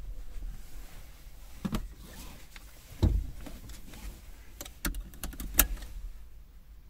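Knocks, clicks and rustling of people moving about inside a parked car's cabin, with one loud thump about three seconds in and a run of sharp clicks near the end.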